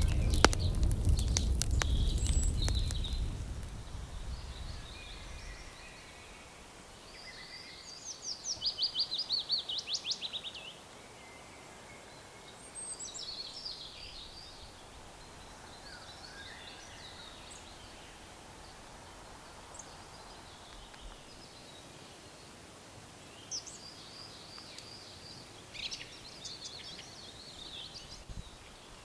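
Wild birds singing in a forest: scattered songs and calls, with one bird giving a fast trill of quick repeated descending notes about eight seconds in. At the start, a low rumble with crackles fades out over the first few seconds.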